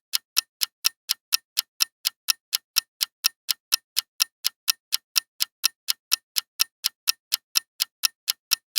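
Steady clock-like ticking, about four ticks a second: a quiz countdown-timer sound effect.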